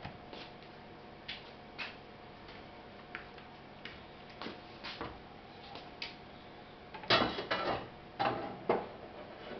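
Omelette frying in a lidded pan, the fat popping and crackling in scattered sharp clicks, with a louder run of crackles about seven seconds in.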